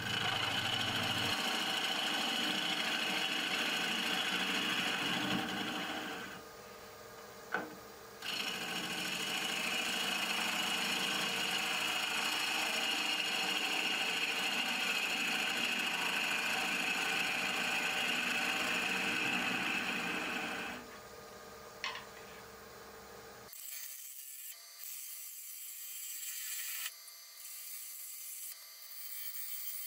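Lathe gouge cutting into a spinning wooden blank: a steady scraping hiss of the cut as shavings come off. The cut breaks off about six seconds in, with a single click, resumes about two seconds later, stops about 21 seconds in, and near the end a quieter, thinner cutting sound with small ticks follows.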